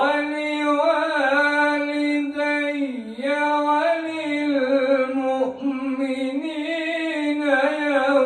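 A man's voice in melodic Quran recitation (tilawah), drawing out one long ornamented phrase. The pitch wavers and turns on held notes, dipping and swelling back up about three seconds in and again briefly past the middle.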